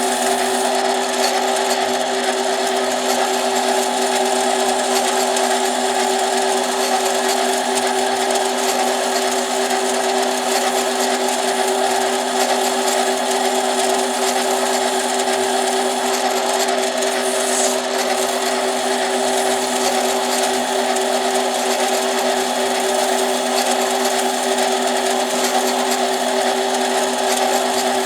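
Lathe motor running steadily with an even hum while a chainsaw piston's edge is chamfered, with a light rubbing of the cut.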